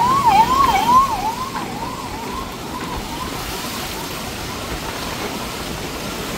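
An emergency vehicle siren in a fast rising-and-falling yelp, about three cycles a second, fading away over the first two seconds. It is followed by the steady hiss of traffic and tyres on the wet road.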